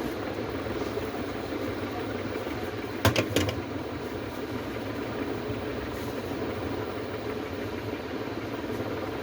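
Steady fan-like whir, with a quick cluster of two or three sharp clicks about three seconds in.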